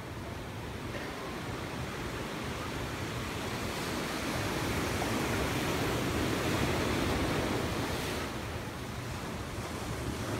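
Ocean surf breaking and washing in below a pier, a steady rushing that grows louder in the middle, with wind buffeting the microphone.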